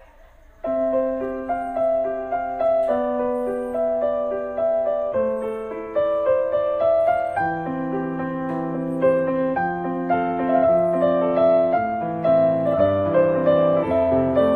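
Background piano music, starting suddenly just under a second in, a slow melody of held notes over held bass notes.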